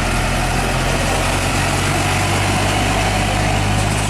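Heavy engine idling steadily with a low, even hum, like a truck's engine.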